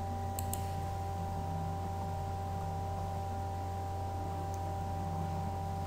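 Steady low hum with a few faint steady tones and hiss: the background noise of a voice-over recording. A faint mouse click, press and release, comes about half a second in.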